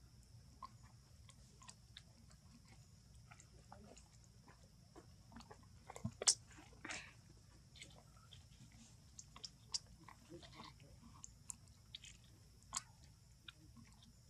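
Faint, irregular crackles and clicks of a dry leaf being handled and chewed by a baby macaque, the sharpest crack about six seconds in, over a faint steady high hiss.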